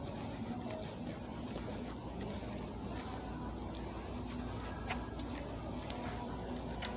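Steady background hum with faint scattered clicks and rustles.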